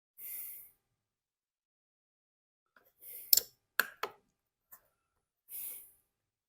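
Workbench handling sounds while a leaf blower is reassembled: a few short scraping rubs and, around the middle, three sharp clicks and knocks of tools and plastic parts.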